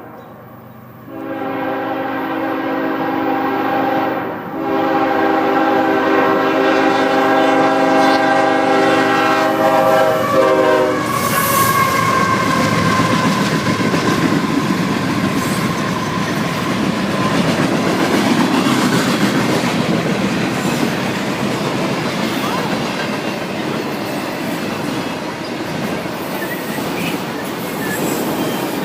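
CSX locomotive's air horn blowing a long multi-tone chord for about ten seconds, with a brief break about four seconds in. Then the train runs past with rumbling, clacking wheels and a faint whine that slowly falls for several seconds.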